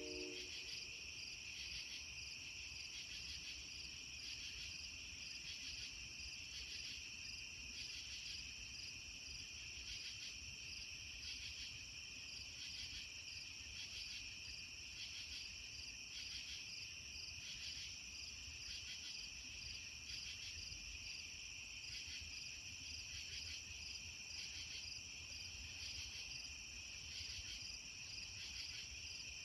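Chorus of crickets, a steady high trill pulsing evenly, with a faint low rumble underneath.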